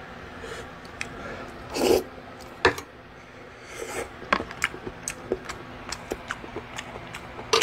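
Eating noises: a short breathy rush about two seconds in, a sharp clink of a utensil against the pot soon after, then a run of small, irregular clicks and mouth smacks of chewing.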